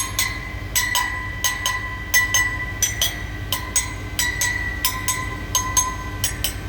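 Gas turbine compressor vanes being tapped to check their tightness: quick metallic taps about three a second, each leaving a ringing tone, over a low steady hum.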